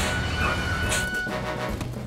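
Background music with a cartoon vehicle engine running under it, and two short swishes, one at the start and one about a second in.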